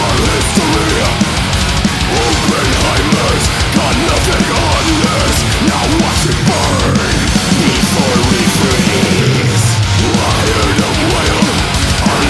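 Extreme metal track playing: distorted guitars over rapid, dense drumming, loud and without a break.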